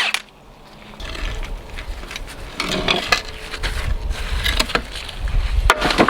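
Heavy diesel machinery running with a low rumble, with scattered metal clanks and knocks from a steel bulldozer track being pulled off.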